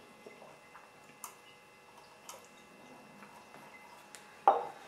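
Faint clicks and ticks of hands handling a small plastic toy windmill kit, with one louder plastic clack near the end.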